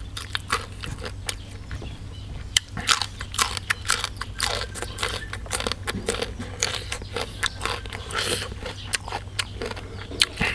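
A person chewing a crunchy mouthful of food close to the microphone, with many crisp crunches in quick succession.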